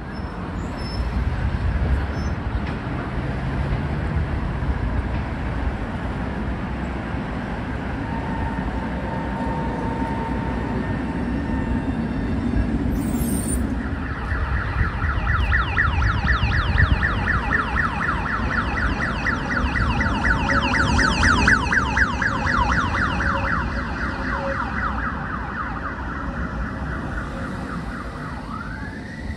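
A Tatra tram running on the track with a steady low rumble. About halfway in, a high, rapidly pulsing squeal from the wheels or running gear joins and fades out a few seconds before the end.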